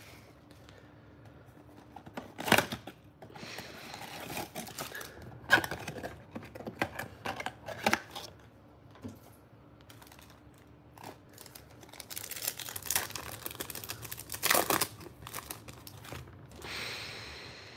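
A trading-card blaster box and its foil packs being opened and handled: wrappers crinkling and tearing, with a few sharp clicks. The tearing and crinkling grow busier about two-thirds of the way through.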